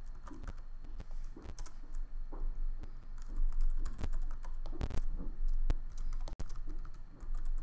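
Computer keyboard typing: irregular keystrokes, with a louder click about five seconds in.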